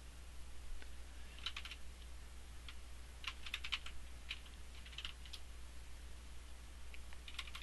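Computer keyboard typing: several short bursts of keystrokes, faint, over a low steady hum.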